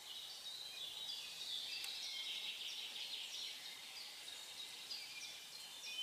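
Several songbirds singing at once, a busy tangle of short high chirps and trills, thickest in the middle, over a faint outdoor hiss.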